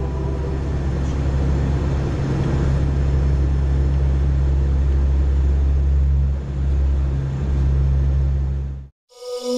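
Steady aircraft engine and airflow drone heard inside the cockpit, with a brief dip about six and a half seconds in. It cuts off suddenly near the end and music begins.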